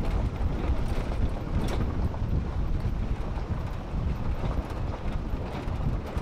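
Wind buffeting the microphone from a moving vehicle, a steady low rumble of rushing air and road noise.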